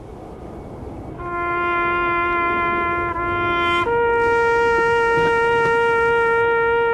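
A solo brass instrument playing slow, held notes: one long note, then a step up to a higher note held for several seconds.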